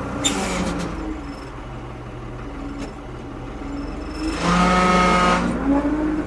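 Ford 550 backhoe's diesel engine running steadily. It gets louder for about a second, with a pitched whine, about four and a half seconds in. A short metallic clank comes right at the start.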